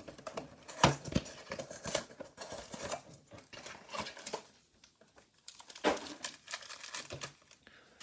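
Plastic and foil trading-card packaging being torn open and crinkled by hand, in short scratchy bursts with a quieter pause around the middle.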